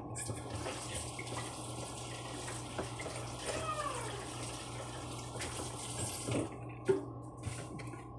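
Kitchen tap running water into a sink, a steady hiss that stops about six and a half seconds in.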